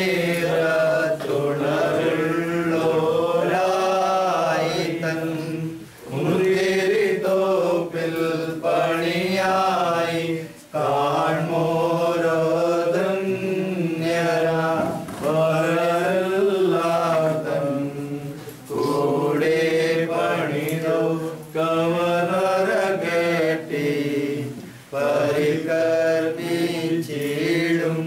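Voices chanting an Orthodox liturgical hymn: a slow, wavering sung melody in phrases, with short breaks between phrases every few seconds.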